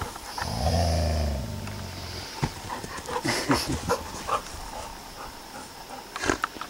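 Young Alaskan Malamute at play with a toy ball in her mouth, giving a low growl about half a second in that lasts about a second, followed by scattered short rustles and knocks.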